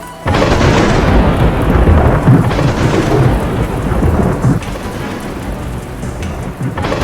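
Thunder rumbling over heavy rain, coming in suddenly just after the start and swelling and easing several times.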